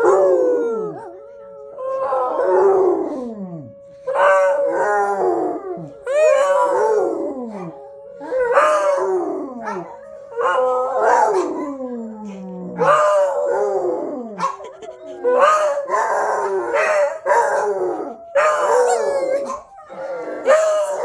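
Dog howling along to a tornado warning siren, about ten long howls each falling in pitch, one every two seconds or so. The siren's steady note sounds faintly beneath the howls and fades out about three quarters of the way through.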